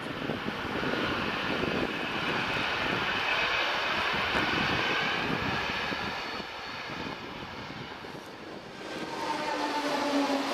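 Narrow-gauge Rhaetian Railway train, a Ge 4/4 II electric locomotive with old Einheitswagen coaches, running over the track: a steady rumble of wheels on rail that fades as it pulls away. About nine seconds in, a second, closer train's rumble swells louder, with a low steady hum.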